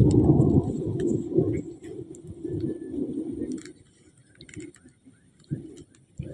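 A low rumbling noise that dies away over the first four seconds, then faint rustling and small clicks as a baby macaque handles and chews a palm leaf, with two soft thumps near the end.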